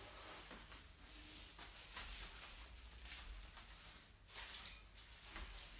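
Faint rustling of a dark green mesh shade cloth being handled and draped over a bonsai pot, swelling twice.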